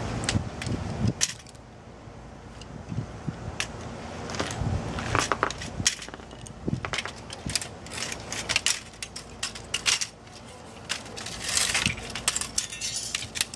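Hard plastic and metal printer parts clicking, snapping and clattering as they are pried apart and handled, in irregular sharp knocks. A steady rumble fades out about a second in.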